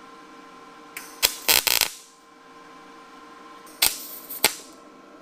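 MIG welder striking two short tack welds on a steel jig, each a brief burst of sharp crackling: the first about a second in, the second near four seconds in. A steady hum runs underneath.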